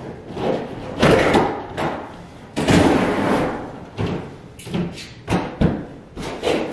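Wall-to-wall carpet being rolled up by hand: repeated bursts of rustling and scraping, the longest about a second, with short dull thumps as the heavy roll is pushed over on the floor.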